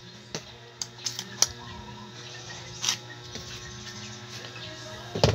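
A few short, sharp clicks and cracks of broken sea urchin shell and spines being picked apart by hand, with a louder clatter near the end, over a steady low hum.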